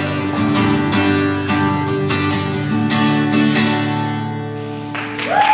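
Acoustic guitar strumming the closing chords of a song, about two strums a second, the last chord left ringing and fading. Near the end applause breaks out, with a whistle rising over it.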